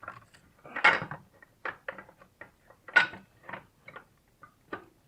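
Metal clinks and knocks as an alternator and its mounting bracket are worked into place in an engine bay, with two louder clunks about one and three seconds in. The alternator is not yet seating properly.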